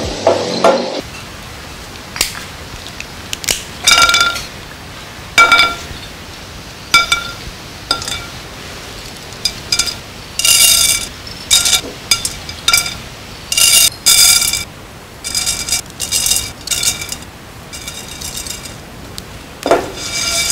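A small pan knocking and clinking against a gas burner's grate while whole spices are dry-roasted and stirred in it: short, sharp ringing clinks at irregular intervals, some in quick clusters.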